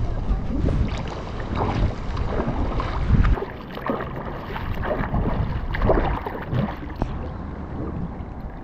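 River water splashing and sloshing close to the microphone, with a few louder splashes along the way.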